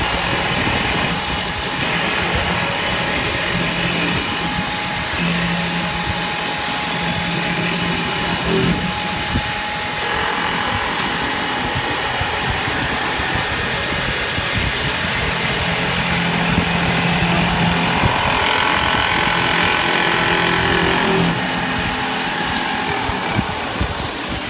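CNC metal spinning machine running, its spindle turning a metal blank while the forming roller presses it into a tapered cone. The sound is a steady machine hiss with a low hum that comes and goes in stretches of a few seconds.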